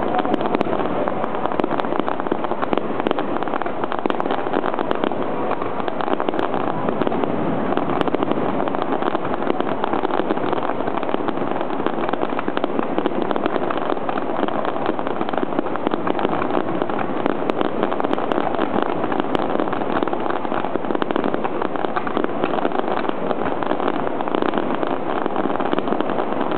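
Aerial fireworks crackling and popping in a continuous dense barrage of many small bursts, with no single loud bang standing out.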